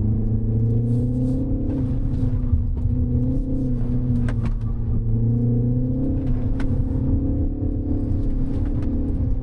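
2025 Mini Cooper S's turbocharged four-cylinder engine running under load with road noise while being driven through corners; the engine note rises and falls slightly. A few short sharp clicks sound over it.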